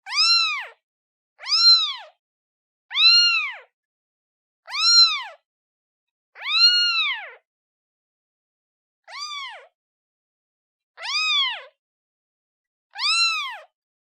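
A newborn kitten meowing for its mother: eight short, high meows, each rising then falling in pitch, about every one and a half to two seconds, with a longer pause midway and one softer meow after it.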